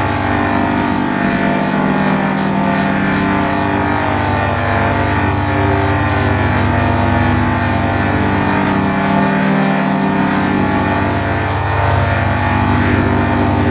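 A loud, continuous drone of many layered, pitch-shifted copies of one sound stacked into a chord: a 'G Major' audio effect. The result is a dense wall of steady tones with no clear single source.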